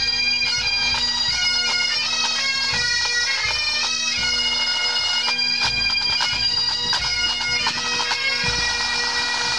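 Highland pipe band playing as it marches: massed bagpipes with steady drones under the chanter melody, and the drum corps beating along.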